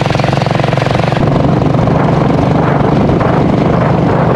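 Motorcycle engine running steadily with a fast pulsing beat as the bike rides along a dirt track, getting a little louder about a second in.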